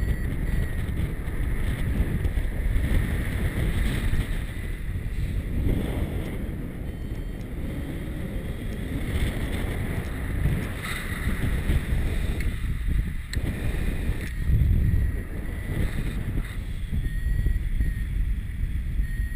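Airflow buffeting the microphone of a camera on a paraglider in flight: a gusty rumble that swells and dips. Short, high repeated beeps from a variometer come through faintly, most clearly near the end.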